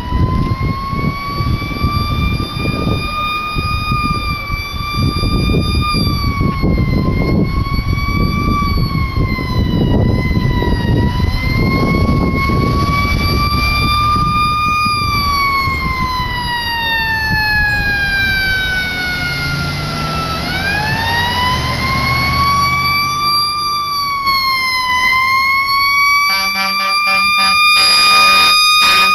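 Fire engine siren wailing, its pitch rising and falling slowly over a heavy low rumble. Around twenty seconds in it sags lower and then winds back up. In the last few seconds air horn blasts sound in quick, pulsing succession.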